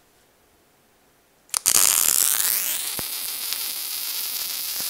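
Wire-feed welder's arc striking about a second and a half in, with a short blip and then a steady loud hiss and crackle as a bead is run down the corner seam of a steel tube frame. The welder is turned up hot for a deep, penetrating weld.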